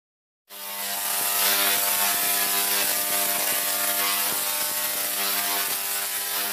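Sound effect for an animated logo intro: a steady electric buzz under loud hiss, with rapid crackling clicks. It starts suddenly about half a second in.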